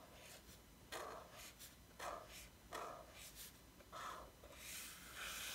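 Faint scratching of a Tombow Dual Brush Marker's brush tip on mixed media paper, in a series of short separate strokes about a second apart.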